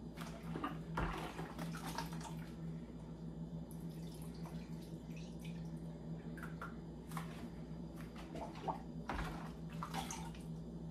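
Pineapple and cucumber juice scooped with a cup and poured through a cheesecloth into a bowl: liquid splashing and dripping, with a few short knocks scattered through, over a steady low hum.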